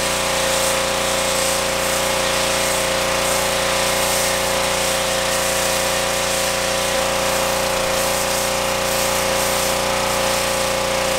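Pressure washer running steadily, its motor and pump humming under the hiss of the spray as it drives a foam cannon.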